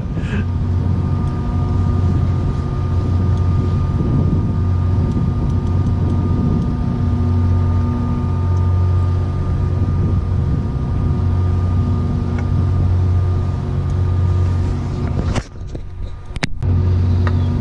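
Moored ship's machinery running with a steady low hum and a few held tones above it. Near the end it drops out briefly amid a couple of sharp knocks.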